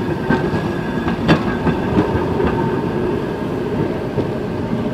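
Historic Ringhoffer tram passing close by, its steel wheels rolling on the rails with several sharp clacks, the loudest about a second in.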